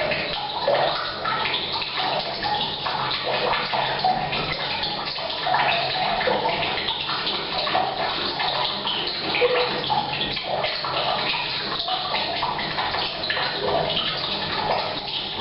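Rain falling on a roof mixed with tap water pouring from a pipe into a water tank, the two splashing together, steady and echoing in a bathroom.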